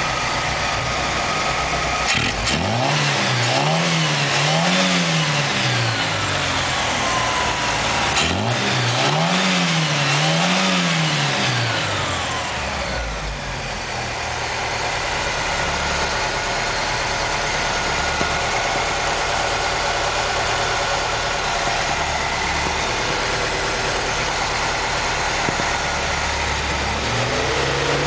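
Car engine idling, then revved in two double blips, each a pair of quick rises and falls a few seconds apart, before settling back to idle. Near the end the revs rise again and are held.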